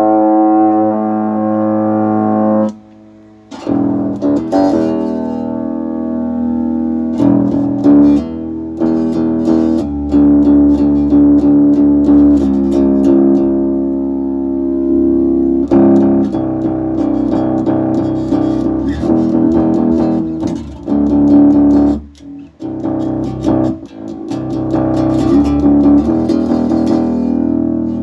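An electric string instrument played through an Electro-Harmonix Bass MicroSynth pedal, giving held, synth-coloured notes with two brief pauses. The pedal is passing sound again now that its shorted SMD chips have been replaced.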